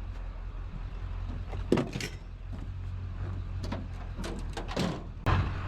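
Low steady engine rumble, with a few short knocks and clanks scattered through it as scrap is handled.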